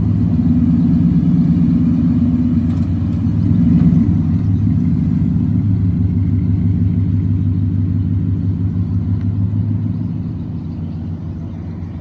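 Toyota Tundra's V8 idling with a steady low exhaust rumble, swelling briefly about four seconds in. Near the end it fades as the truck pulls away.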